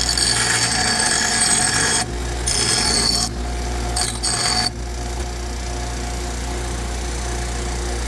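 A grinder cutting into steel tubing, shaping a semicircular notch by hand. It grinds for about two seconds, then makes two shorter passes, and stops about five seconds in. A steady low hum carries on underneath.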